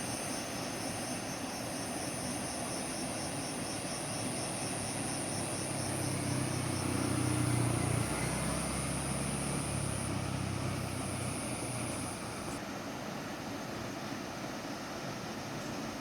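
A low engine drone swells up and fades away over the middle, over a steady rushing hiss and a high, fast-pulsing insect buzz.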